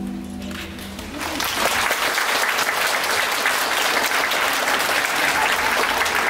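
The last held notes of the music die away, and about a second in an audience breaks into applause: dense, steady clapping that carries on at an even level.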